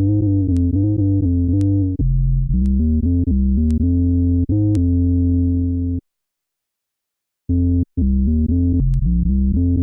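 Fender Jazz Bass played through an Electro-Harmonix Bass Mono Synth pedal and recorded direct: a synth-bass line of short, changing notes. It stops for about a second and a half past the middle, then starts again.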